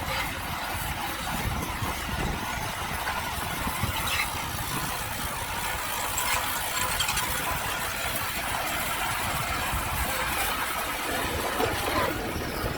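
Small crawler bulldozer at work: its diesel engine runs steadily while the steel tracks give short high squeals a few times.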